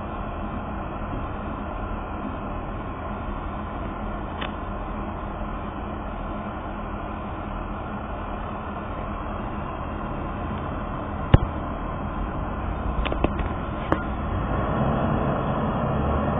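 School bus diesel engine idling close by under a steady rumbling hiss, with a few sharp clicks in the second half. Near the end the low engine sound grows as the bus starts to pull away.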